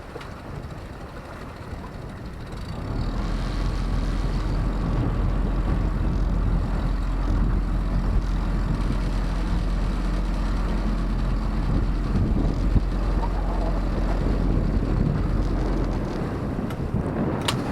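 Motorboat engine running steadily, growing louder about three seconds in and easing off near the end, with rushing water and wind noise.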